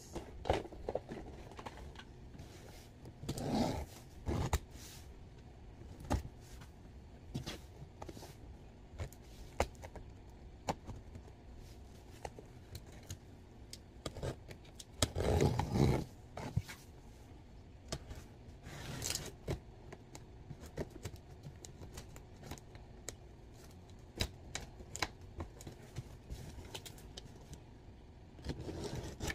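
A cardboard shipping box being worked open by hand: scattered small clicks, taps and scrapes, with a few louder rubbing, scraping bursts, the longest about fifteen seconds in.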